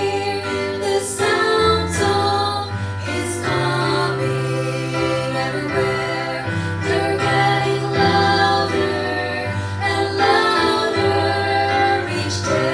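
Music: a vocal trio singing a gospel song, several voices holding notes together over a low bass line.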